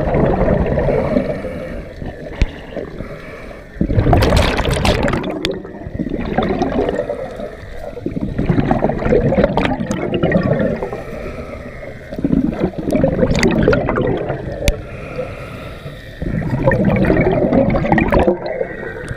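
Scuba regulator exhaust bubbles, heard underwater: the diver's exhaled air bubbling out in a burst with each breath, about every four seconds, with quieter pauses between breaths.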